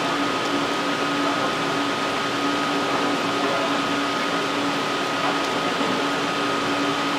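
Steady machine hum with a constant high whine and a lower steady tone, unchanging in level.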